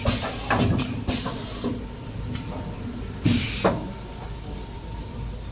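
Kitchen towel paper production line running, with a steady machine hum, repeated short hisses of air and clacks as its pneumatic mechanism moves the rolls. The loudest hiss and clack come about three seconds in.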